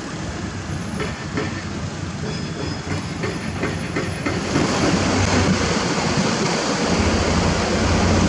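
Isuzu Giga self loader truck's diesel engine running as it drives slowly past, with the dump truck on its bed rattling and clanking. About four and a half seconds in, the noise grows louder and steadier with a deeper engine rumble.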